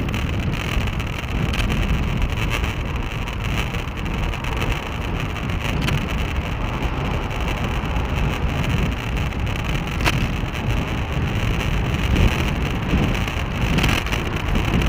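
Wind rushing over the microphone of a Gitup F1 action camera mounted on a moving bicycle, with steady deep rumble from the tyres and the road, and a few sharp clicks from bumps rattling the mount.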